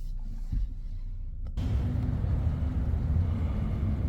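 Low rumble of a car, which cuts abruptly to a louder, fuller rumble about a second and a half in.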